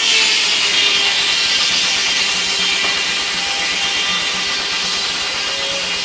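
Steam-tractor-powered circular sawmill blade cutting through a log: a loud, steady ripping hiss that starts abruptly as the blade enters the wood and holds through the cut.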